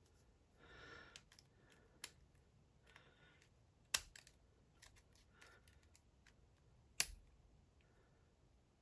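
Pliers working the retaining clip off the back of a dimple lock cylinder: soft metal scraping and a few sharp clicks, the loudest about four and seven seconds in.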